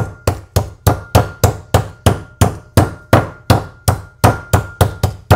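Meat mallet pounding slices of pork cutlet flat for schnitzels: a steady run of sharp blows, about three to four a second.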